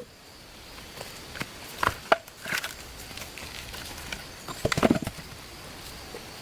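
Scattered knocks and cracks of wood being handled or worked, a few around two seconds in and a quick cluster about five seconds in, over a faint steady high hiss.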